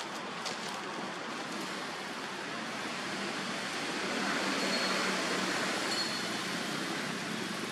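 Water splashing and sloshing as macaques move and grapple in a shallow muddy pool, swelling louder about halfway through. Two brief high peeps are heard during the loudest part.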